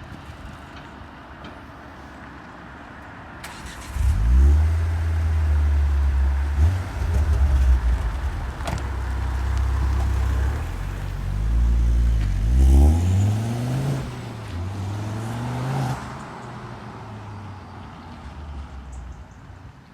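Ford Focus RS Mk2's turbocharged 2.5-litre five-cylinder engine, on its stock exhaust, starting about four seconds in. It settles into a steady idle with a few short blips, then rises and falls in pitch with several revs before dropping back to a quieter idle.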